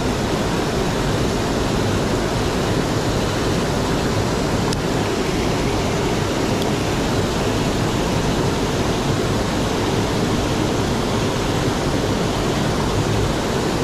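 River water rushing over rocks and a small cascade: a steady, even rush.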